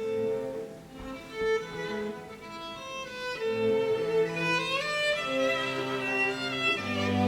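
Background music: a bowed-string piece with a violin melody over string accompaniment, with low strings coming in strongly near the end.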